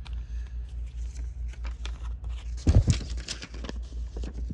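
Clear plastic packaging bag crinkling and rustling as it is handled, in a run of short crackles, with a louder low bump about three seconds in. A steady low pulsing hum runs underneath.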